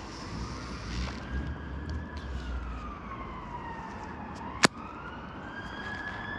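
An emergency vehicle's siren wails, its pitch sliding slowly up, down and up again. A single sharp click cuts through about halfway through.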